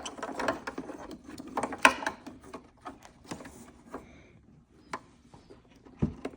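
Plastic wiring-harness connectors and wires being handled and plugged together: a run of small clicks and rattles, busiest in the first two seconds, then sparser, with a dull knock near the end.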